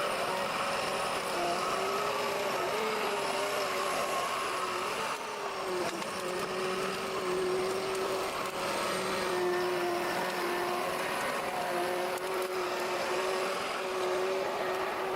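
Diesel engine of a heavy forestry machine working logs, running steadily with a whine whose pitch wavers slightly as the load changes.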